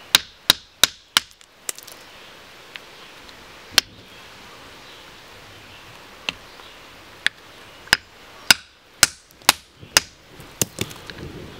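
Hammer striking a small piece of garnet-bearing rock held on a boulder, giving sharp cracks of metal on stone. Four quick strikes come right at the start, then a few scattered single blows, then a faster run of strikes about every half second near the end.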